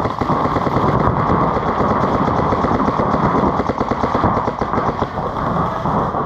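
Reball paintball markers firing rapidly and continuously, several guns overlapping in fast strings of shots. The fire starts abruptly and stops near the end.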